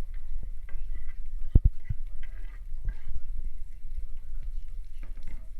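Food frying in a pan, with the scrape and clatter of stirring.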